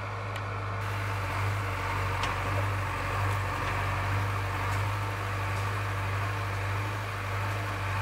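JCB 3DX Plus backhoe loader's diesel engine running steadily under digging load, a low even drone, with a few faint clicks as the bucket works stony soil.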